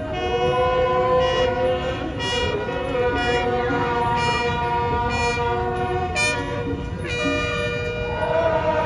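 Music of the Thai royal barge procession carrying over the river: long held pitched notes, several at once, moving from one held note to the next, with a few short sharp accents.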